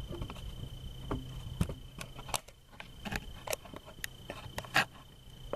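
Scattered clicks and light knocks from the camera being handled and adjusted, over a steady high drone of crickets.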